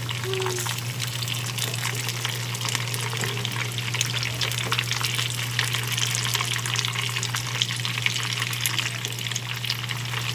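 Chicken pieces deep-frying in plenty of hot oil: a steady sizzle with many small, quick crackles and pops.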